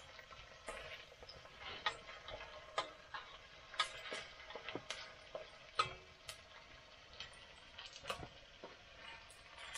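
Irregular clinks and scrapes of a utensil against a steel cooking pot as chili ingredients are stirred in and added, over a faint sizzle from the pot on the wood stove.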